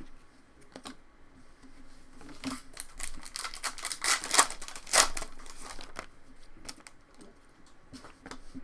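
Trading cards and their packaging being handled by hand: a run of crinkles, flicks and light clicks, busiest in the middle.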